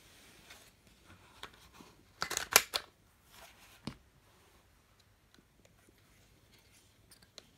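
Ultra Kyuban Colt toy suction-cup dart pistol being fired: a quick cluster of sharp clicks and snaps about two seconds in, then a single sharp click a little over a second later, with a few faint handling clicks.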